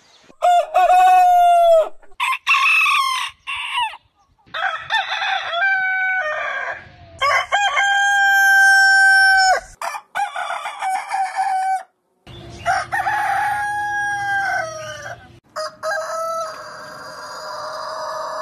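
Roosters crowing one after another, about seven crows in turn from different birds. One crow near the middle is long and held level for a couple of seconds; the others are shorter.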